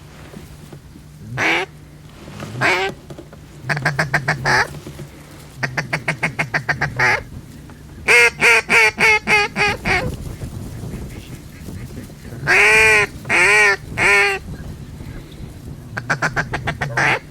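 Mallard duck call blown in quick runs of short quacks, then three long, loud drawn-out quacks about twelve seconds in, and another quick run near the end: hunters calling to bring ducks in.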